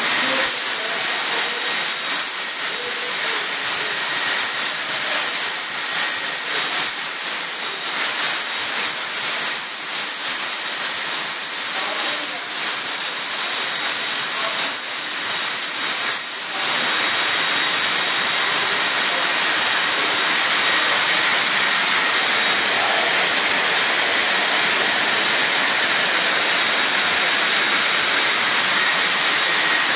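Laser cutting machine running, with a steady rushing hiss of air from its blowers. A high thin whistle over it stops about halfway through, and the noise then runs smoother and more even.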